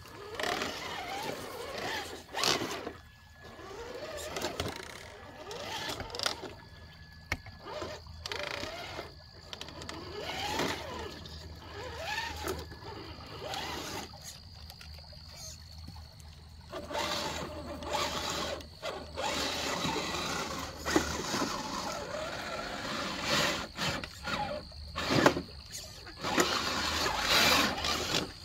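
Electric motors and geared drivetrains of two RC scale crawler trucks whining in stop-start bursts, pitch rising and falling with the throttle, as they crawl over rocks through a shallow creek with splashing water and tyres scrabbling on stone.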